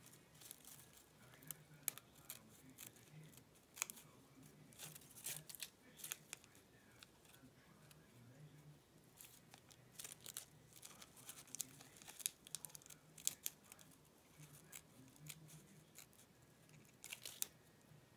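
Small spring-loaded snips cutting paper-backed fabric: faint, irregular snips, often in quick clusters, with rustling of the fabric and backing paper as it is handled.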